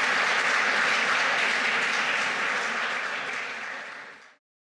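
Audience applauding, dying away near the end and cutting off abruptly about four seconds in.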